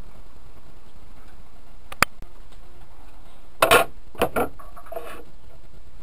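Sharp clicks and knocks of a small plastic grease tub being handled and its screw lid opened: a single click about two seconds in, a quick cluster a little past halfway, then two more and a faint rattle, over a steady background noise.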